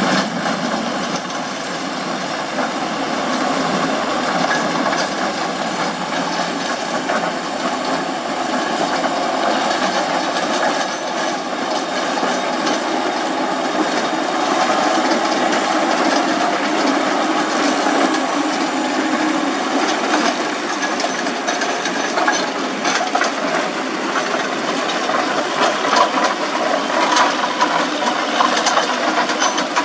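Road-construction machinery running with a steady mechanical noise, with sharper clatter and knocks coming in over the last few seconds.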